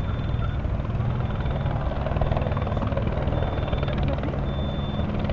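Police helicopter's rotor and engine running steadily, a continuous rapid beat of the blades.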